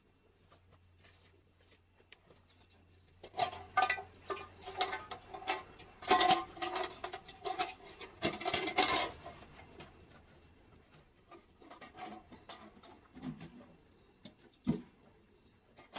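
Chickens squawking and cackling in a loud, rapid burst of calls lasting about six seconds, starting a few seconds in. Afterwards, a few scattered knocks of objects being handled, one sharper than the rest near the end.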